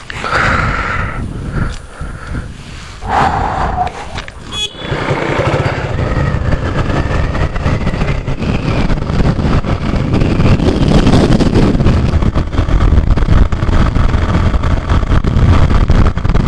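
Suzuki Gixxer motorcycle being ridden, its engine and the rushing wind on the action camera making a steady loud rumble that builds from about five seconds in. Short horn toots from traffic sound in the first few seconds.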